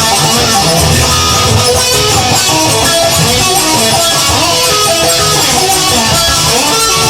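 Guitar playing a blues instrumental passage: a run of short single notes over a steady low accompaniment.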